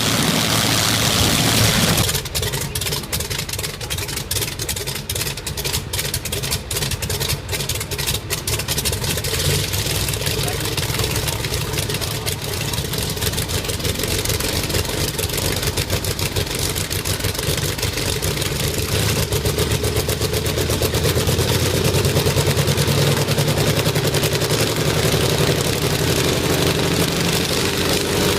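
Rolls-Royce Merlin V12 piston aero engine running on the ground. After an abrupt change about two seconds in, it fires with a rapid, uneven beat, then settles into a steady run. Over the last several seconds it grows louder and its pitch rises slowly as the engine speeds up.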